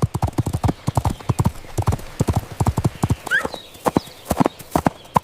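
Horse hooves clip-clopping in a quick, uneven run of knocks, several a second.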